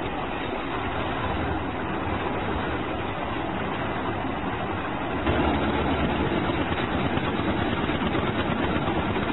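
Steady mechanical rumble like an idling engine, stepping louder about five seconds in.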